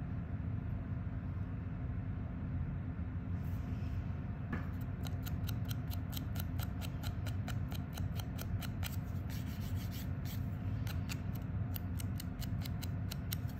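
Cuticle nippers snipping at the skin around a fingernail: a quick run of small sharp clicks, several a second, starting about four seconds in.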